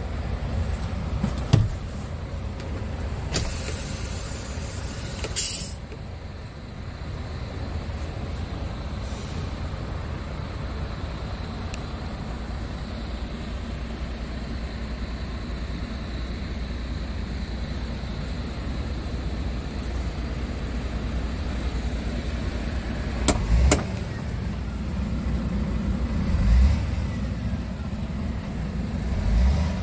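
Scania R tractor unit's Euro 6 diesel engine idling steadily, heard from inside the cab, with a few dull thumps and a brief hiss a few seconds in.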